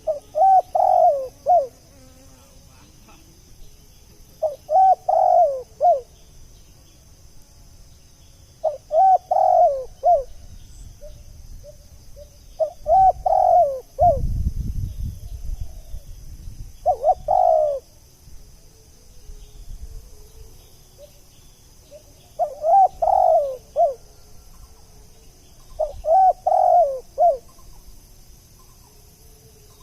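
Spotted dove cooing: seven repeated coo phrases, each about a second and a half long, coming about every four seconds. A steady high insect hum runs underneath, and a low rumble comes about halfway through.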